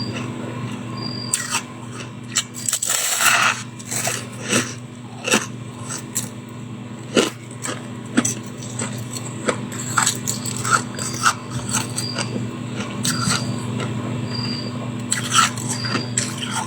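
Close-miked biting and chewing of soft freezer frost and shaved ice: irregular crunches, with a longer crunching burst about three seconds in. A steady low hum runs underneath.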